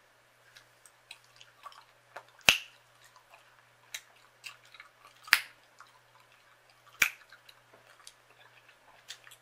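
Gum chewing close to the microphone: small wet clicks and smacks from the mouth, with three loud, sharp gum cracks spread out about a second and a half to three seconds apart.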